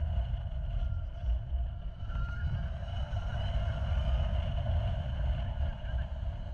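Wind buffeting on the microphone and road noise from a 2019 Zero SRF electric motorcycle under way. There is no engine note, only a faint whine from the electric drive that rises and falls.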